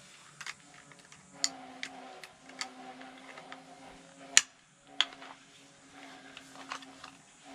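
Ryobi 18V brad nailer's plastic jam-release clip and nose being worked by hand: scattered small clicks, with one sharp snap a little past halfway and a second about a second later, over a faint steady hum.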